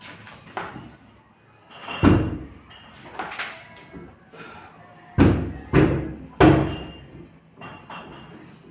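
Heavy knocks against a wooden door: one about two seconds in, then three quick strikes a little over half a second apart, with lighter taps between.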